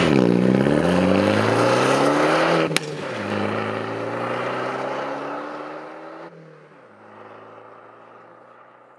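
Alfa Romeo MiTo engine accelerating, its pitch climbing, with an upshift marked by a short click about three seconds in; it then pulls up again more slowly in the next gear and grows fainter after about six seconds.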